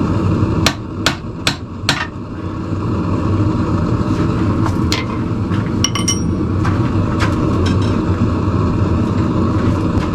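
Hand hammer striking hot steel on an anvil while forging tong jaws. Four quick blows just under a second in, then a few lighter, spaced taps, one with a short metallic ring. A steady low background noise runs underneath.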